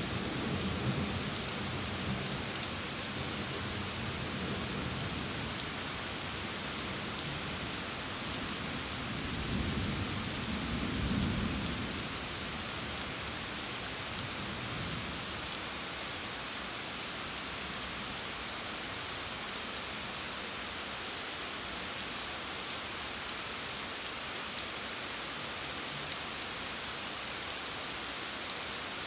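Steady rain falling, with thunder rumbling low at the start and swelling again about ten seconds in before dying away, leaving only the rain hiss.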